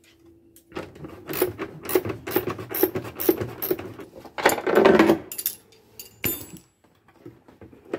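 Hand tools and metal hardware clicking and rattling while the old steering helm bracket is unbolted from a wooden console. There is an irregular run of clicks, a louder scrape about halfway through, and a short metallic jingle a little later.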